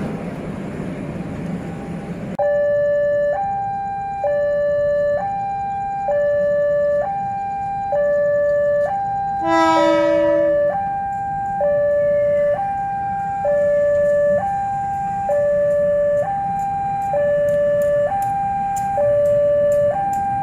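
Rumble of a freight train's wagons crossing a steel truss bridge, cut off about two seconds in by a level crossing's electronic warning alarm, which alternates between a low and a high tone, each held about a second. About ten seconds in, the approaching diesel locomotive sounds its horn once for about a second over the alarm.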